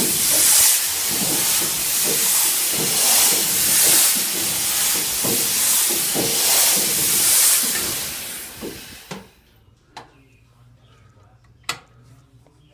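Locomotive diesel engine being cranked on its starter: a loud hissing rush with a steady run of low chuffing pulses. About nine seconds in it winds down and stops without the engine catching, followed by a couple of sharp clicks.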